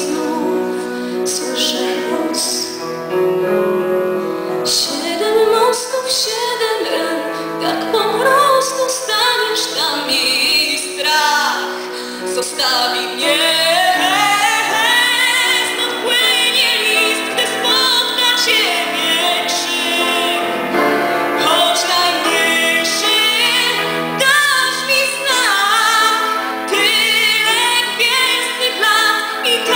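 A woman singing a song into a microphone over instrumental accompaniment, with vibrato on her held notes.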